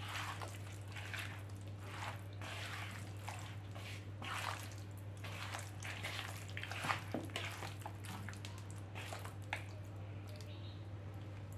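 A hand squelching and turning fish pieces coated in a wet chilli-masala marinade in a plastic bowl, in irregular squishy strokes.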